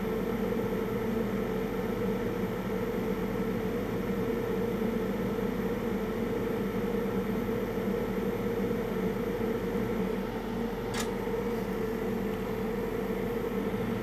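Steady hum of a workbench fume extractor fan running, with a faint tick about eleven seconds in.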